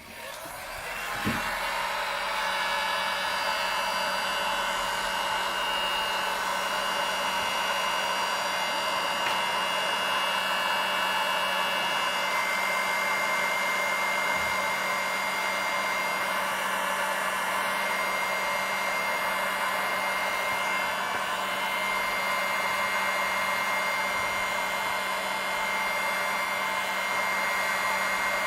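Hot air gun blowing steadily, shrinking heat-shrink insulation over the antenna wire: an even rushing of air with a fan whine, coming up to speed over the first second or two.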